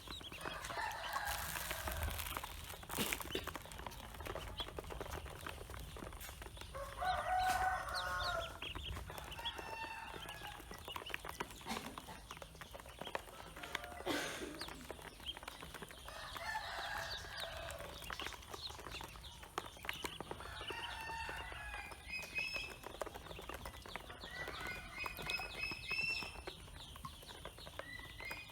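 Poultry calling: drawn-out calls about a second long recur every several seconds, and near the end come fast runs of high, repeated peeps such as Pekin ducklings make, over a steady patter of small clicks.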